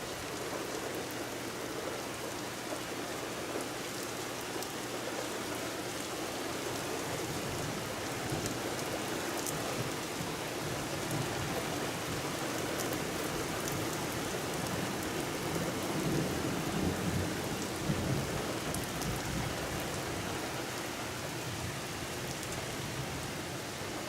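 Steady rain on surfaces with scattered drop ticks, and a low rumble of thunder that builds from about a third of the way in and is strongest just past the middle.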